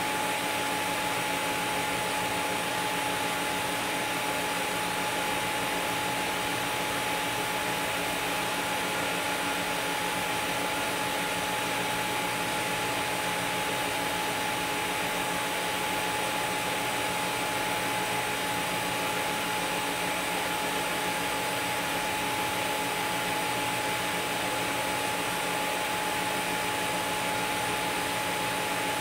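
TIG welding arc on stainless steel sanitary tubing, fed by a Miller Dynasty 350 at a set, unpulsed current: a steady, even hiss with a thin constant tone over it.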